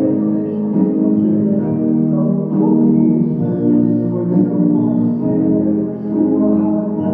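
Yamaha digital stage piano played with both hands: a slow progression of held chords, each sustained and changing about once a second.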